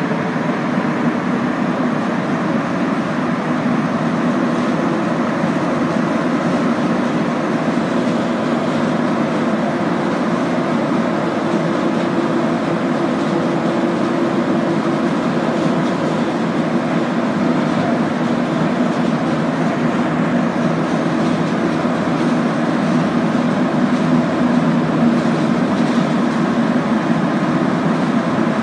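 Montreal Metro Azur (MPM-10) rubber-tyred subway train running at speed through the tunnel, heard from inside the car: a steady, loud rumble of the running gear with a low hum beneath it.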